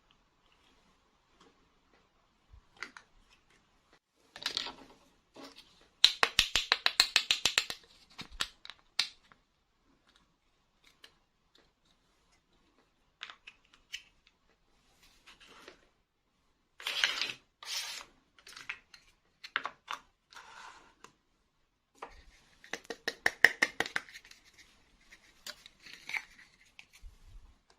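Small plastic toy pieces and packaging being handled, with scattered clicks and short rustles. Twice comes a quick run of rapid clicking, the louder one about six seconds in and another near the end.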